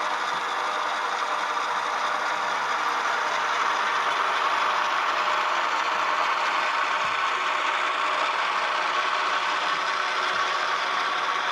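Sound decoders of two HO-scale GE ES44AC model locomotives playing their diesel engine sound through small onboard speakers at a steady level while the pair runs on the layout, with the mechanical rattle of the running models mixed in.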